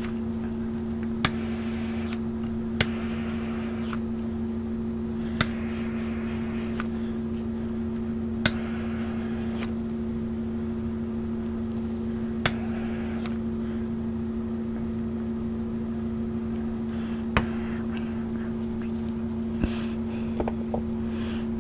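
A steady mechanical hum, even in pitch, with several sharp clicks at irregular intervals.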